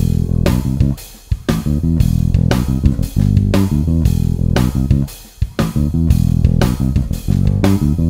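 Cort A6 Plus FMMH six-string electric bass with Bartolini pickups, played fingerstyle: a rhythmic line of plucked, changing low notes, with brief breaks about a second in and again about five seconds in.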